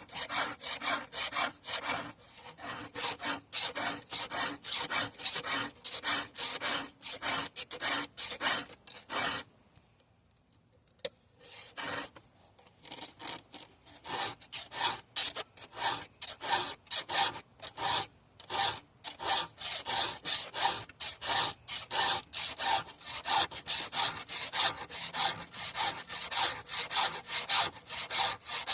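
Hand file rasping across a chainsaw chain's cutters in a steady run of strokes, with a pause of about two seconds roughly ten seconds in.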